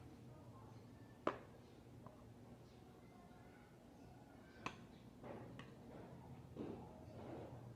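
Close-up eating sounds: a few sharp clicks, one about a second in and two more past the middle, then soft, irregular chewing noises in the second half.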